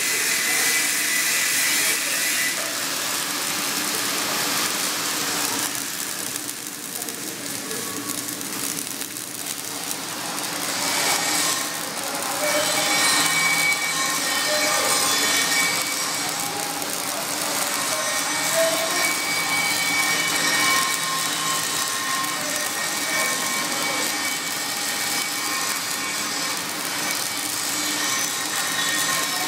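Flux-cored arc welding on carbon steel plate: the arc sizzles steadily, dipping somewhat quieter for a few seconds about a fifth of the way in before returning to full level.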